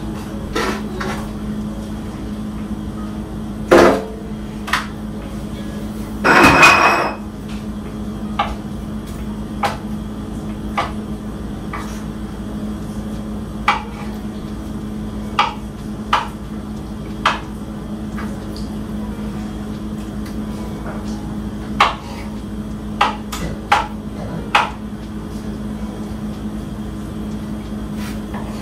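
Kitchen knife striking a cutting board in separate cuts, sharp taps about a second apart, with a louder knock a little under 4 s in and a longer clatter around 6 to 7 s. A steady low hum runs underneath.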